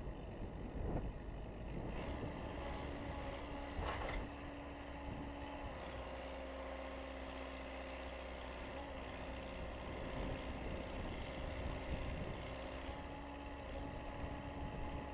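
Case 580C backhoe's engine running at a steady speed, with a short knock about four seconds in.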